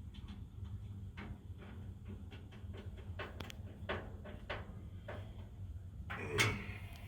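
Irregular light clicks and knocks of smoker parts and tools being handled during assembly, with a louder clunk about six seconds in, over a faint steady low hum.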